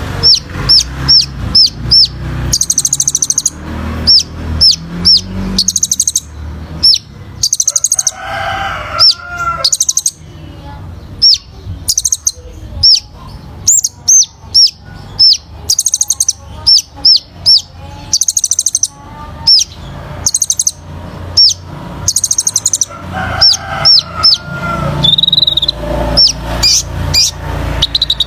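Kolibri ninja sunbird singing: runs of sharp, high chip notes several per second, alternating with rapid, very high buzzy trills, with a lower warbling phrase twice.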